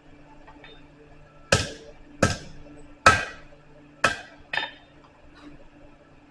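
Five hammer blows on steel at the anvil, each with a short metallic ring; the last two come close together. Bending a scroll in hot bar stock.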